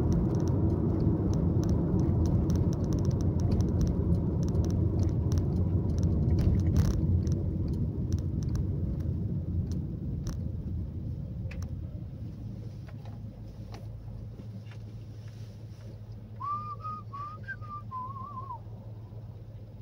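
Road and engine rumble heard inside a moving car, dying away over the middle of the stretch as the car slows to a stop at a traffic light. Near the end, a brief warbling whistle sounds for about two seconds.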